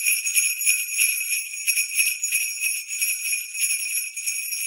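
Sleigh bells jingling with quick, continuous shakes, a bright, thin ringing with no low end.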